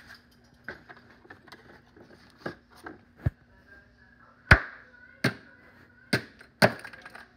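About ten sharp, uneven blows striking the broken circuit-board pieces of a wireless mouse on a wooden board, faint at first and much louder from about halfway through.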